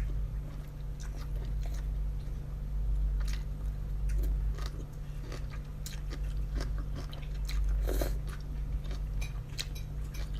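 Close-up chewing and wet mouth clicks of someone eating beef noodle soup, irregular and scattered, over a steady low hum.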